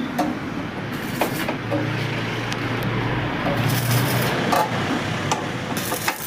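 Steady background rumble with a low hum that swells and fades in the middle, and a few sharp clicks.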